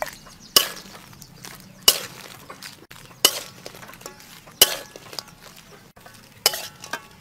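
Metal ladle clinking as cooked shrimp are scooped from a wok onto a plate: five sharp knocks, a little over a second apart.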